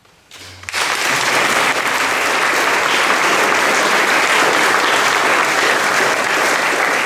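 Audience applause breaking out suddenly within the first second and continuing steadily and loud.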